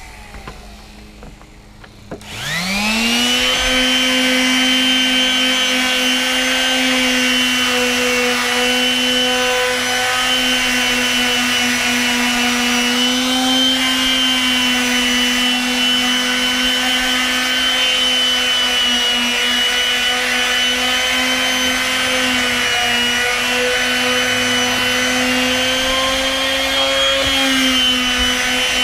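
Makita random orbit palm sander started about two seconds in, its motor whine rising quickly to a steady pitch, then running while sanding wooden deck boards, with small dips and wavers in pitch.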